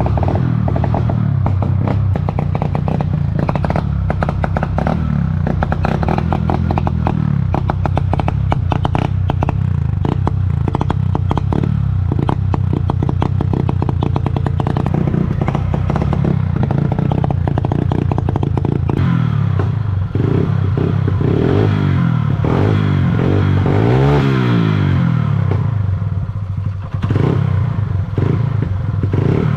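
Honda CG Fan's single-cylinder four-stroke engine running with a fine mechanical clatter, its pitch wandering and rising then falling once about three-quarters of the way through as the throttle is blipped; the engine is not holding a steady idle.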